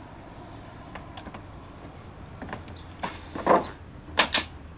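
Pneumatic coil nailer firing collated nail screws through AdvanTech subfloor into the joists: a few sharp shots in the second half, the last two in quick succession.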